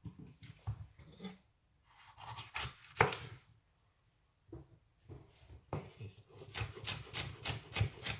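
Knife chopping on a wooden cutting board. Scattered knocks and rubbing come first, then from about six seconds in a steady run of chops, about three strokes a second.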